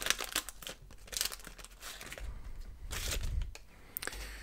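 Plastic wrapper of a Pro Set 1990/91 soccer card pack crinkling and tearing as it is peeled open. The crackling is busiest in the first second and a half, then thins to fainter rustling as the cards are drawn out.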